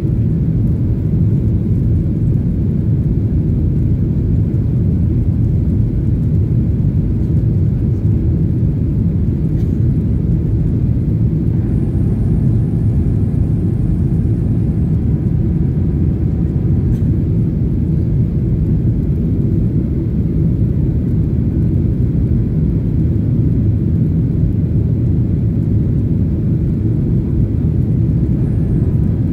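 Steady low rumble of airliner cabin noise: jet engines and airflow, unbroken throughout, with a few faint thin tones about halfway through.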